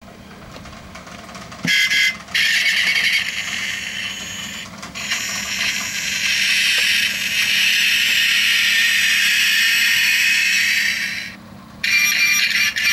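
A diecast Mini Cooper toy's built-in sound chip, triggered by pressing the roof, playing an engine start and revving effect through a tiny tinny speaker. It starts about two seconds in, breaks off briefly near five seconds, stops near eleven seconds and starts again just before the end.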